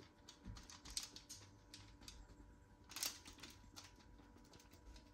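Faint, scattered crackles and clicks of a palm pressing proofed bread rolls flat on parchment paper, the oat flakes and seeds on top crunching under the hand; slightly louder about one and three seconds in.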